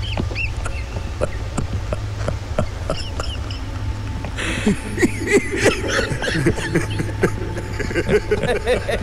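Film soundtrack: many short squeaks and chirps over a low steady drone, growing denser and louder about four seconds in.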